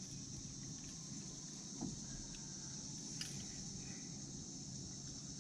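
Insects droning steadily at a high pitch over a low rumble, with a couple of faint clicks about two and three seconds in.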